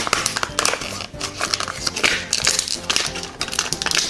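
Plastic packaging crinkling and rustling in quick irregular crackles as hands handle and open it, over background music.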